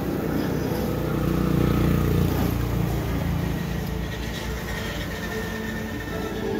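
A passing vehicle's engine rumble that swells to its loudest about two seconds in and then fades.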